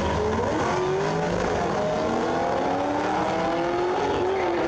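Two cars accelerating hard down a drag strip, their engine note climbing steadily, with a gear change about four seconds in.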